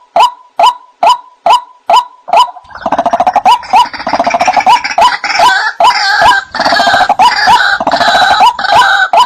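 White-breasted waterhen calling: a regular series of short 'wak' notes, a little over two a second, gives way about three seconds in to a dense burst of harsh overlapping calls, and the regular notes resume near the end.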